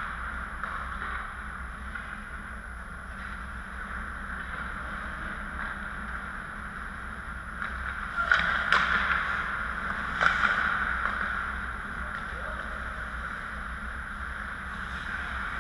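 Indoor ice rink ambience: a steady hum of the arena with distant skating, and two louder scrapes of skates on the ice about eight and ten seconds in.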